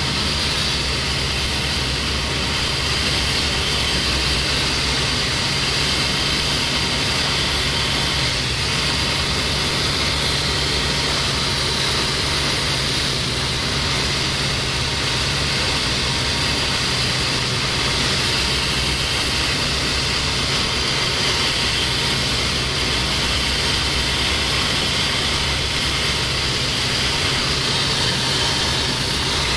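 Light single-engine propeller aircraft in flight, its engine and propeller running steadily at a constant pitch, heard from inside the cockpit.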